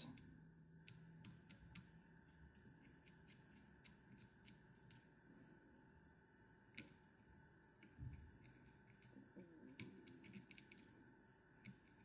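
Near silence, with faint scattered small clicks and taps as a black marker is dabbed onto the burned-monofilament eyes of a fly on the hook.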